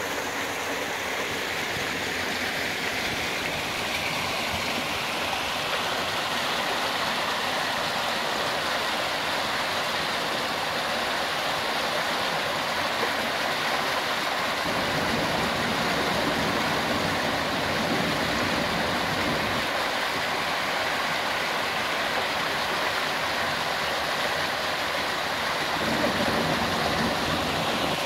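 Fast water rushing down a farm irrigation channel and pouring through the openings of a low concrete weir: a steady rushing and splashing.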